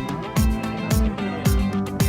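Background music with a steady beat about twice a second and guitar.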